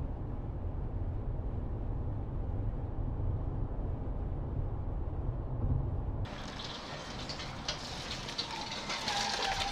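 Car road noise heard from inside the vehicle: a steady low rumble, which changes abruptly about six seconds in to a brighter, hissier rush of tyre and traffic noise.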